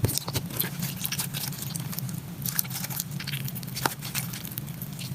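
Glitter slime being worked and squished by hand, a steady run of small sticky clicks and pops.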